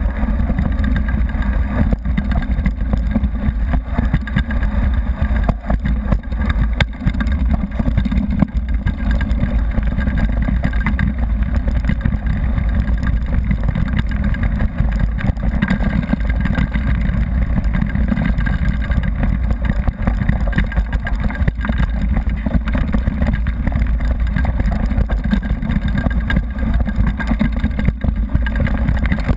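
Wind buffeting a GoPro action camera during a fast downhill run on a gravel forest road, with constant rattles and knocks from the bumpy surface.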